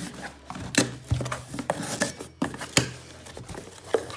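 A blade slitting packing tape on a cardboard box, then the cardboard flaps pulled open and the packed products shifting: a run of sharp clicks, knocks and scrapes over rustling.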